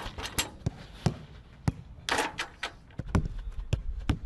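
A football being kicked and touched: a string of sharp, irregular thuds, roughly one every half second.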